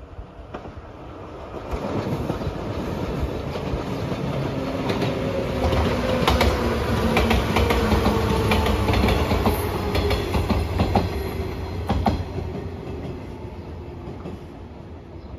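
JR 115 series electric train passing at speed: the rumble grows, peaks with wheels clacking over rail joints and a tone that falls slightly in pitch, then fades as the train moves away.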